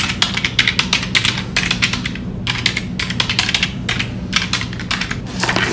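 Fast typing on a laptop keyboard with long fingernails: quick runs of key clicks broken by short pauses.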